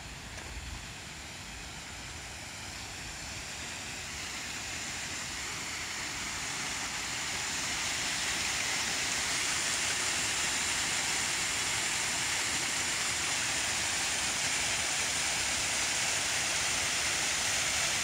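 Small waterfall pouring over a rock ledge into a pool: a steady rush of falling water that grows louder over the first several seconds, then holds steady and stops abruptly.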